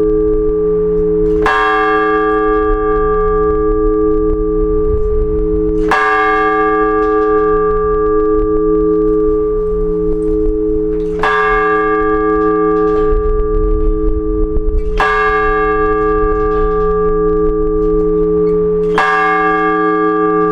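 A large church bell struck singly at a slow, even pace, five strikes about every four to five seconds. Each strike rings on in a long, slowly pulsing hum that carries under the next. This is the blagovest, the measured ringing of one bell that calls people to the service.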